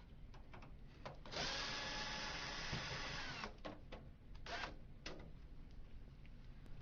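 A power screwdriver runs for about two seconds, backing out the screw that holds the printer's left side cover, and winds down at the end. A few light clicks of handling come before and after.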